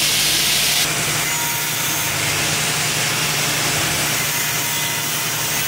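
Small angle grinder cutting off the tack welds that hold a steel exhaust header to its jig. It starts with a harsh, hissing grind that eases off about a second in, and then the grinder runs on steadily.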